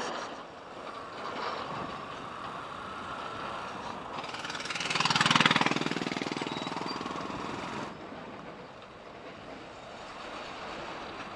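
Motorcycle riding noise: a steady rush of engine, tyre and wind sound, with a motorcycle engine's rapid pulsing loud for about two seconds in the middle.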